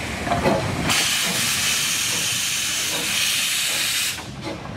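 Steam locomotive letting off a loud, steady hiss of steam low at the front, by the cylinders, for about three seconds. The hiss cuts off suddenly near the end, and a couple of short beats from the engine come just before it starts.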